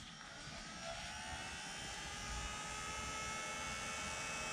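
Electric heat gun running on its low setting: its fan motor winds up over the first second or so, then runs steadily with a whine and a hiss of air.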